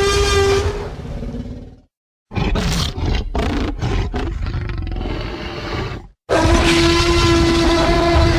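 Tyrannosaurus rex roar sound effects from the Jurassic Park films: a long roar with a steady low tone fades out about two seconds in, a rough pulsing growl follows, and a second long roar begins about six seconds in.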